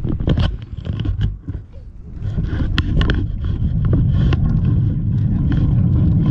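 Handling noise on a bike-mounted camera: clicks and scrapes as a hand works at it. From about two seconds in, a steady low rumble of wind on the microphone and tyres rolling on a dirt path as the bicycle gets moving.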